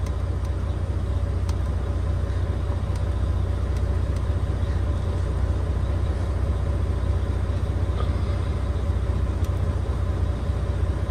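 Heavy truck's diesel engine idling steadily shortly after a cold start, heard from inside the cab, with a deep even hum and a few faint clicks.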